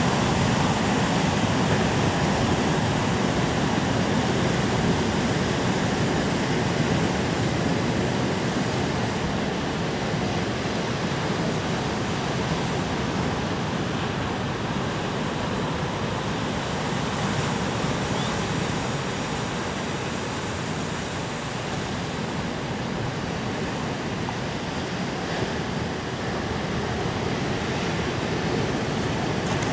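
Ocean surf breaking and washing over a rocky shore: a steady rushing noise that swells and eases slowly, a little softer past the middle.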